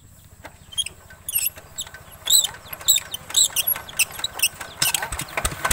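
A run of short high squeaks, about two a second, then the single-cylinder diesel engine of a walking tractor catches and starts running near the end.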